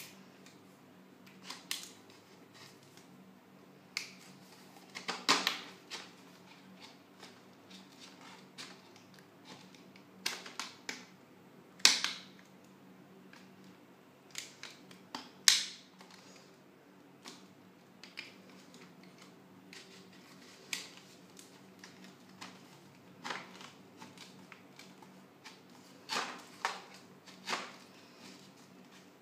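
A thin plastic shampoo bottle handled while sticks are pushed through holes in its sides: irregular clicks, scrapes and crinkles of plastic, with a few sharper knocks.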